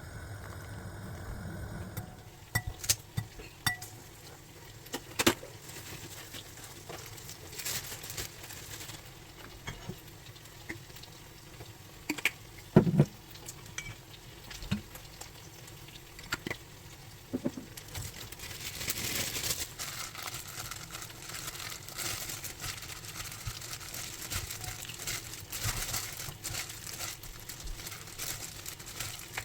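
Kitchen work sounds: scattered clinks and knocks of dishes and utensils, with a stretch of steady hiss a little past the middle. A low hum stops about two seconds in.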